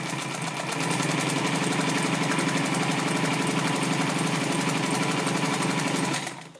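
Juki LU-562 walking-foot (unison feed) industrial sewing machine stitching through a stack of denim, set to 18 stitches per inch. It comes up to speed in about a second, holds a steady, rapid stitching rhythm, then slows to a stop near the end.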